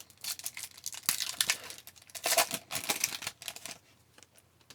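A hockey card pack wrapper crinkling and tearing as it is ripped open by hand, in a run of irregular crackles that dies away shortly before the end.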